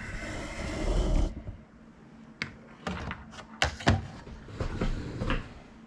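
Parts of a resin 3D printer's housing being handled and fitted back together: a brief sliding, scraping noise, then a series of knocks and clicks as the pieces are set in place.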